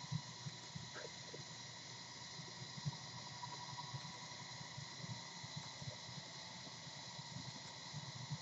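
Quiet room tone: a steady hiss with faint thin whining tones, and soft low bumps now and then, a little stronger just after the start and about three seconds in.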